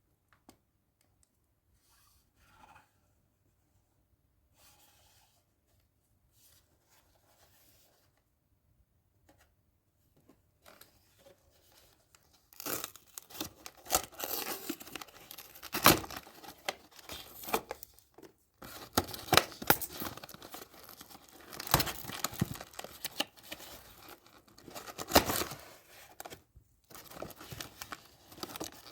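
Close-up packaging of a Labubu unboxing being torn open and crinkled. Faint handling at first, then from a little before halfway a dense run of sharp rips and crackles that stops briefly twice.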